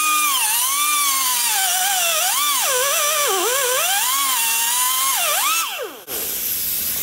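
Handheld grinder cutting the head off a rusted-in propeller mounting bolt: a motor whine whose pitch wavers and sags as the tool bites into the metal, stopping about six seconds in.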